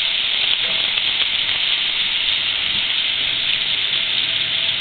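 Heavy rain pouring down in a thunderstorm: a steady, dense hiss.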